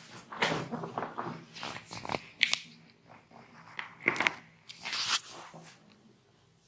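Hand massage sounds from a barber working on a person: an irregular run of short rubbing and slapping strokes with a crackle to them, dying away near the end.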